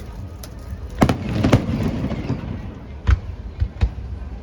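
Fireworks bursting overhead: about five booms, a pair about a second in and a quick group of three a little after three seconds in, each trailing off in a rumble.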